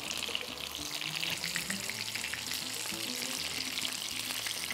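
Breaded chicken strips shallow-frying in hot oil in a pan: a steady sizzle with many small crackles. The strips have fried to golden brown.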